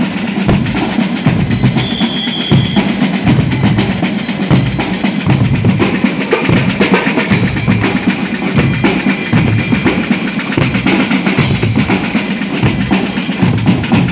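Guggenmusik brass band playing loud: saxophones, trombones and trumpets over bass drums, snare drums and cymbals beating a steady rhythm.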